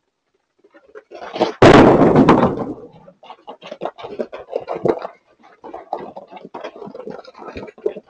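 A deer crashes into a garage door with a loud bang and a rattle that rings on for about a second, about a second and a half in. Then hooves clatter and scrabble on the concrete driveway as the deer scramble up and run.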